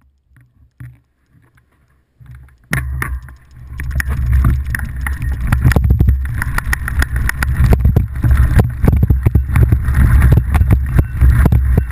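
Wind buffeting a handlebar-mounted action camera's microphone as a small bike rolls fast over bumpy grass, a loud low rumble with many sharp rattling knocks from the bike. It starts suddenly about three seconds in, after a few faint clicks.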